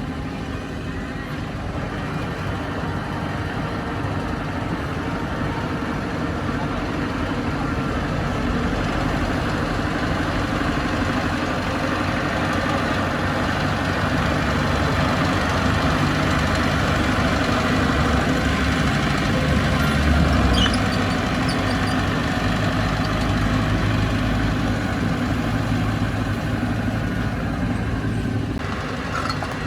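Bulldozer's diesel engine running steadily, growing louder toward a peak about two-thirds of the way through and easing off near the end.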